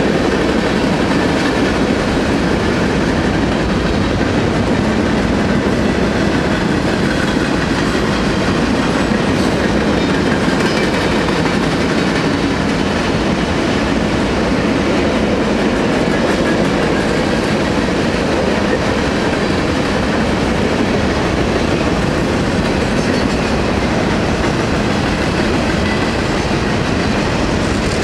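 Freight cars rolling past close by: a steady, loud rumble and clatter of steel wheels on the rails that goes on without a break.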